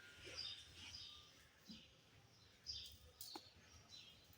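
Near silence with faint, scattered bird chirps in the background and a single faint click near the end.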